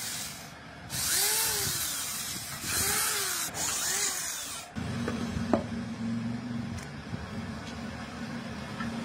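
Electric power tool working wood in three loud passes, its pitch rising and falling with each pass, then running on as a steady hum, with a single sharp click partway through.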